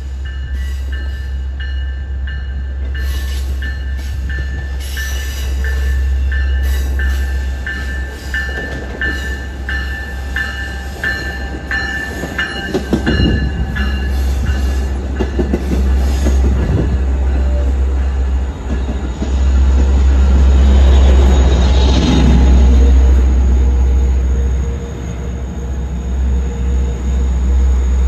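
Long Island Rail Road diesel push-pull train approaching and passing close by, with a steady low rumble. A bell rings about twice a second for the first half, then the wheels knock over the rail joints as the cars go by, loudest a few seconds later.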